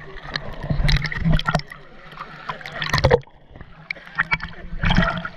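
Seawater splashing and sloshing over a waterproof action camera bobbing at the surface, in and out of the water, with sharp splashes and a sudden drop in loudness about three seconds in.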